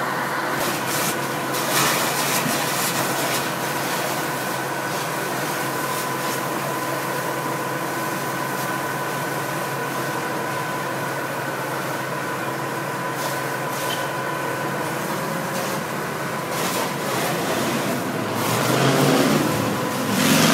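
Fire hoses spraying water onto a burning car, a steady hiss as the jets turn the fire to steam, over the even drone of an engine or pump running. A louder low rumble swells near the end.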